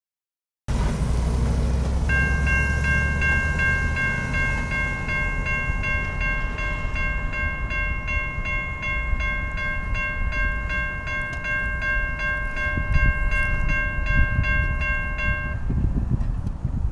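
Railroad crossing warning bell ringing in rapid, evenly paced dings while the crossing gates lower, then stopping suddenly near the end once the gates are down. A low wind rumble on the microphone sits under it.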